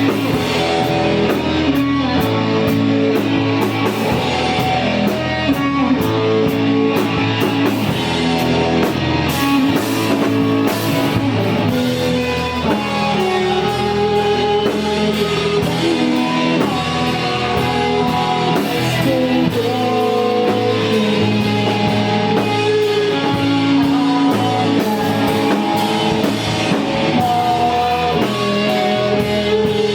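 Emo rock band playing live: electric guitars and drum kit, with singing.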